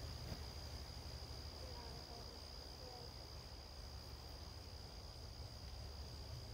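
Insects, crickets, chirring in one steady high-pitched drone that does not let up, over a low rumble.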